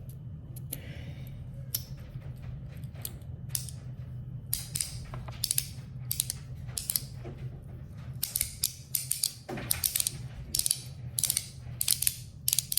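Metal magnetic haptic slider coin being worked back and forth, its slider clicking sharply into place against the magnets. The clicks are sparse at first and come quickly and irregularly from about four and a half seconds in. Now and then the slider skips its pull, which the owner puts down to weak magnets.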